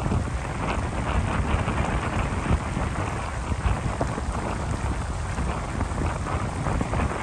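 Wind buffeting the microphone: a steady rushing noise with a heavy low rumble and small crackles throughout.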